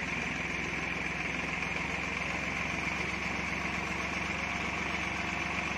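A motor vehicle's engine running steadily, an even low hum with a constant hiss above it.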